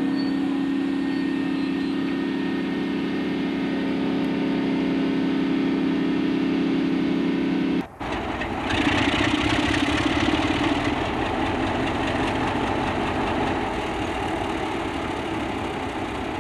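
Diesel engine idling with a steady hum. After a sudden cut about halfway through, a diesel locomotive's engine runs louder and rougher as the locomotive moves slowly toward the camera.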